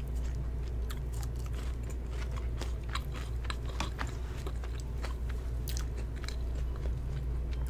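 Close-miked chewing of McDonald's french fries: soft crunches and wet mouth clicks at irregular moments throughout, over a steady low hum.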